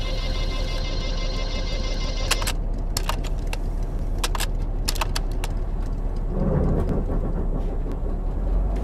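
Car cabin sound while driving: a steady low road and engine rumble with a scattering of light clicks and jingling rattles. A steady humming tone stops about two and a half seconds in.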